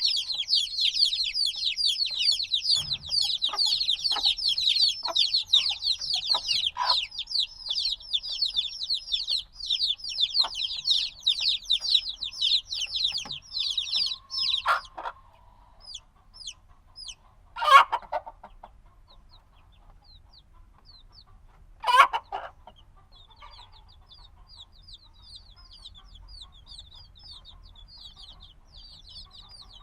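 A brood of chicks a few days old peeping: many rapid, high, falling peeps overlapping, thinning out about halfway through. Two short, louder, lower calls or knocks stand out in the quieter stretch, and then softer steady peeping picks up near the end.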